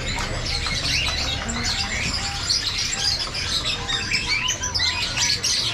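Many caged songbirds chirping and calling over one another in a dense, continuous chorus, over a low steady hum.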